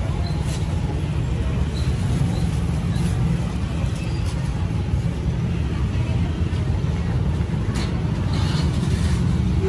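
Street ambience: a steady low rumble of passing traffic with indistinct voices in the background.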